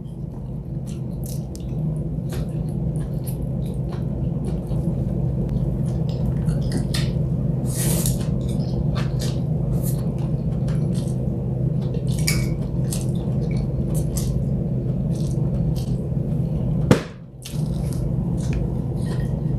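Eating at a table: chopsticks clicking and scraping against bowls and plates, with chewing and slurping of noodles and rice, as many short scattered sounds. Under it all runs a steady low hum.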